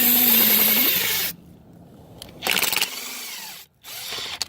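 Impact gun spinning a Counteract stud-cleaner brush over a gunked-up, painted beadlock stud. It runs for about the first second, its motor pitch rising just before it stops, then gives two short bursts near the middle and toward the end.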